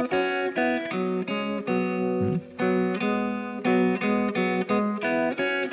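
Electric guitar playing a quick run of double stops, pairs of notes from the pentatonic scale picked together, with a short break a little over two seconds in.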